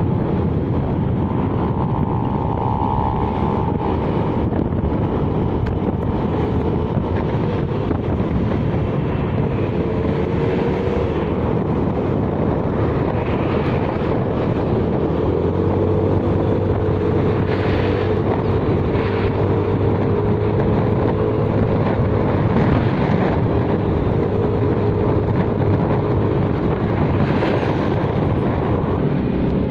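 Road vehicle on the move: steady engine and road noise with wind buffeting the microphone, and a steadier engine note coming in about halfway through.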